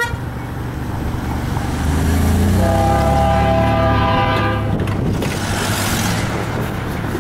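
Diesel freight locomotive approaching, sounding one long blast of its multi-chime air horn about two and a half seconds in, over the low rumble of its diesel engine; a rushing hiss follows as the horn ends.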